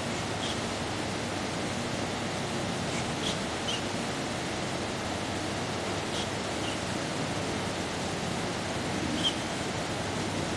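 Steady, even room noise with a few faint small clicks scattered through it.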